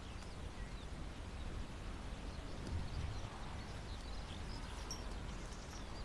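Rural outdoor ambience: a steady low rumble with faint, scattered bird chirps.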